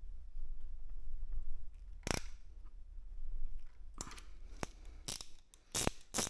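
Scattered sharp clicks and knocks, one about two seconds in and a run of five or so in the last two seconds, from tools and small hardware being handled during motorcycle work.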